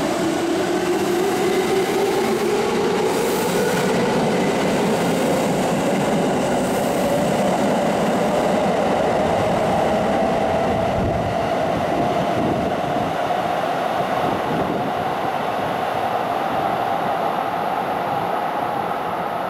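Kintetsu 7000-series electric train pulling away, its VVVF inverter and traction motors whining in a steadily rising pitch as it accelerates, over the running noise of wheels on rail. The whine levels off about halfway through and the sound fades a little near the end as the train draws away.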